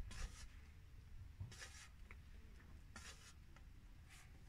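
Metal filler knife scraping two-part body filler around a mixing board, working the hardener in. Faint scraping strokes about every second and a half.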